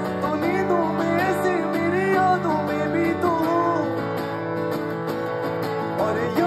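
Live acoustic guitar strummed under a man's singing voice, heard through a concert PA; a new sung phrase rises in near the end.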